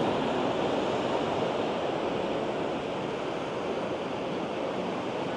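Atlantic surf breaking and washing over black volcanic rocks along the shore, a steady rushing wash of water.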